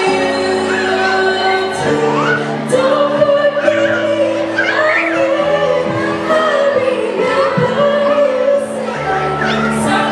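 A woman singing a slow ballad live into a handheld microphone, holding a long note in the middle. Under her voice, accompaniment chords change every second or two.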